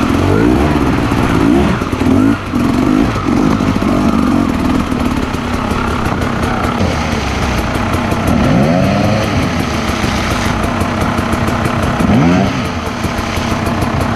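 Motorcycle engine running loudly on a trail ride, revving up and easing off repeatedly, with sharp rises in pitch about two, eight and twelve seconds in.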